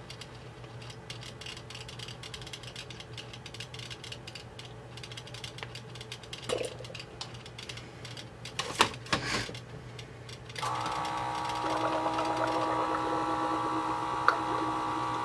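A few light knocks of tubing being handled, then about 10.5 s in a small electric coolant pump switches on and runs with a steady whine.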